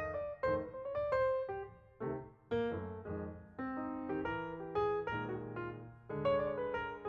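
Background piano music: a run of struck notes and chords, each starting sharply and fading.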